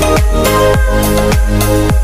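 Background electronic music with a steady kick-drum beat, about two beats a second, under held synth notes.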